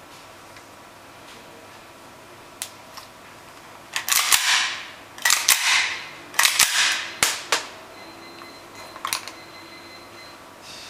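Tokyo Marui Foliage Warrior gas-blowback airsoft pistol firing a quick string of about eight shots, each a sharp crack with a hiss of gas as the slide cycles, bunched together in the middle. A lone click comes before the string, and a couple of light clicks follow it.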